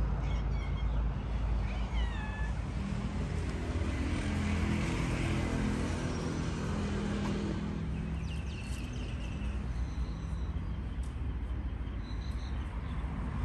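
Tabby cat meowing, over a steady low rumble, with a few short high chirps.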